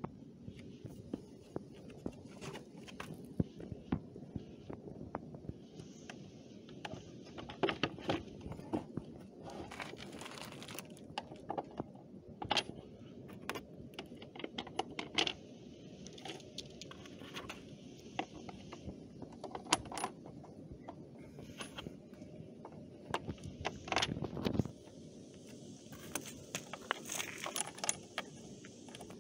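Hard plastic car trim parts being handled, with small fasteners pressed and fitted into the panel: scattered sharp clicks, taps and light rattles of plastic.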